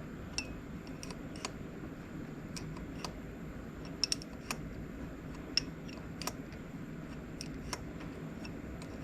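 Light metal clicks and taps at irregular intervals as bolts are fitted to hold a milling vise down on a mini mill's table, over a steady low hum.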